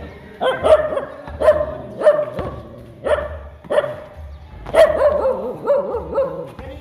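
A dog barking over and over, about ten sharp barks in irregular succession.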